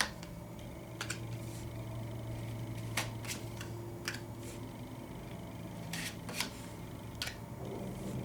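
A deck of tarot cards being handled as she shuffles and draws from it: about eight sharp, irregularly spaced clicks and snaps of card stock, over a steady low hum.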